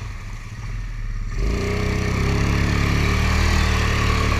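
1998 Yamaha Grizzly 600 ATV's single-cylinder engine, running low for the first second or so, then throttled up about a second and a half in and running steadily as the quad pulls through mud and water.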